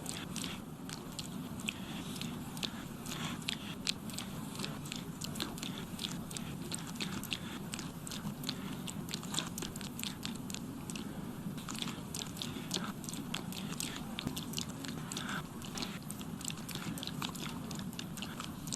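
A man's lip smacks and mouth clicks, a rapid, uneven string of several a second, some overlapping, over a steady low hum.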